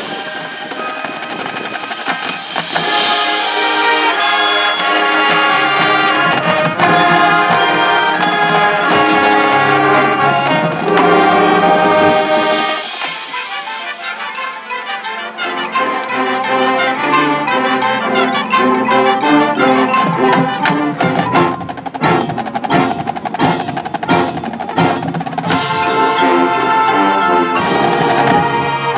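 High school marching band playing, brass chords over drums. About halfway through the brass drops to a quieter passage, then builds back up over sharp, repeated drum hits.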